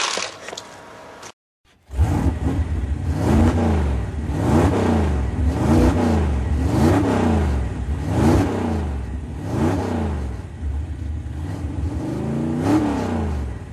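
An engine revving up and down again and again, about once a second, over a steady low drone.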